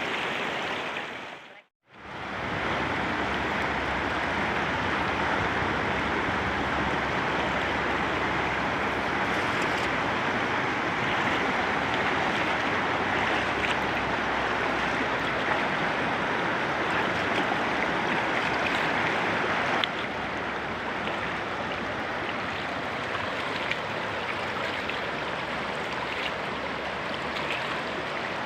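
River water flowing steadily, with a brief dropout about two seconds in.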